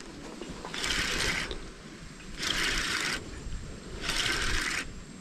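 Fishing reel running in regular bursts about every second and a half, each lasting under a second, while a hooked fish is being fought.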